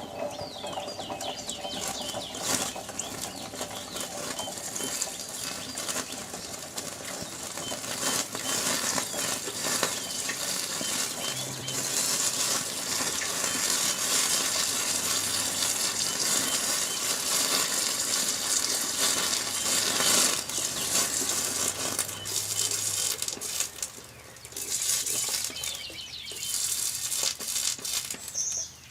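Red-hot steel Allen wrench quenched in used motor oil for hardening, the oil sizzling and crackling around the hot metal. The hiss is loudest for about fifteen seconds in the middle, then dies down.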